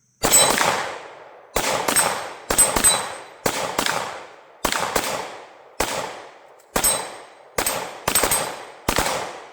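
A string of pistol shots, about a dozen over a few seconds, fired at an uneven pace with some in quick pairs. Each crack trails off in a short echo.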